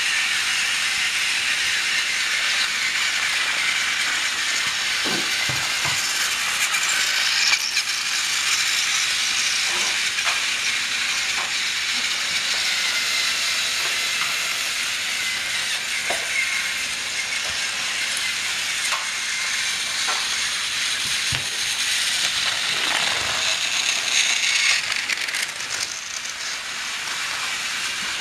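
Battery-powered Thomas & Friends TrackMaster toy trains running on plastic track, a steady high-pitched motor whir and wheel rattle, with a few light clicks.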